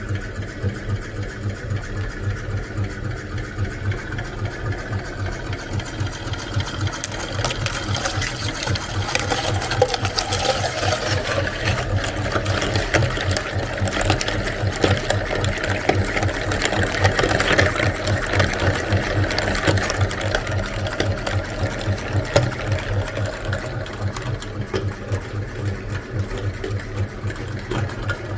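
Electric meat grinder running with a fast, even pulse. From about seven seconds in, the noise of eggs being forced through the grinder builds over the motor, loudest around the middle, then eases toward the end.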